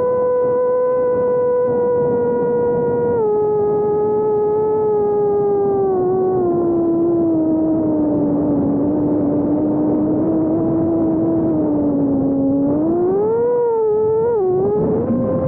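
Brushless motors and propellers of a 4-inch FPV quadcopter whining steadily in flight, with air rushing underneath. The pitch steps down a few seconds in and sinks slowly as the throttle eases, then swoops up and wobbles with quick throttle changes near the end.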